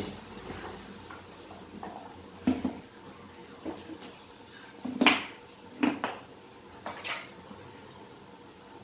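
Wooden spatula knocking and scraping against a nonstick pan while scrambled paneer bhurji is stirred, in several scattered short strokes, the loudest about five seconds in.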